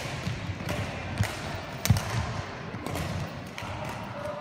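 Badminton rally: sharp racket-on-shuttlecock hits and players' shoes thudding on the court floor, irregular strikes about every half second to second, with the loudest thump about two seconds in.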